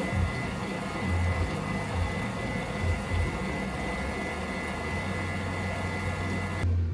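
Steady low mechanical hum with a faint high whine and background noise, like a running machine or a vehicle interior; it cuts off abruptly shortly before the end.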